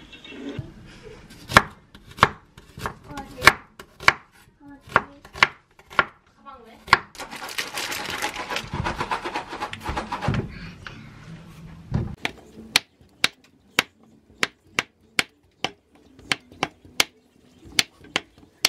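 Kitchen knife chopping on a wooden cutting board, cutting konjac brown-rice cakes into large chunks: scattered knocks at first, a rustling stretch of about three seconds in the middle, then steady chopping at about two strokes a second.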